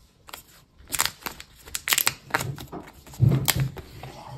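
Clear plastic shrink-wrap film being torn and peeled off a laptop's cardboard retail box: an irregular run of crinkles and crackling tears, loudest a little past three seconds in.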